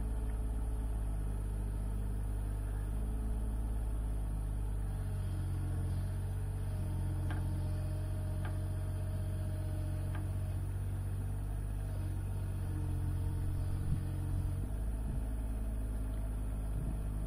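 Mini excavator's diesel engine running steadily at a low pitch while the operator slowly works the arm; the engine note shifts slightly about five and again about fifteen seconds in.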